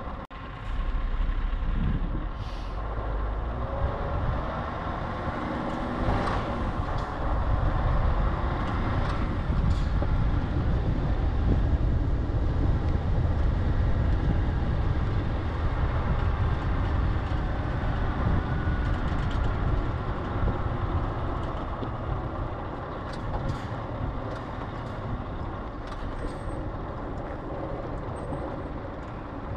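Scania R580 truck's V8 diesel engine running through a slow manoeuvre, its pitch rising and falling over the first several seconds, then running steadily. A few short sharp noises break in now and then.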